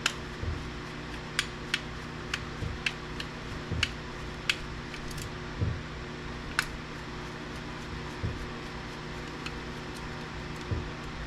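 Irregular small clicks and light taps of a precision screwdriver and small metal and plastic parts as two tiny screws are backed out of a VCR's small motor, over a steady low hum.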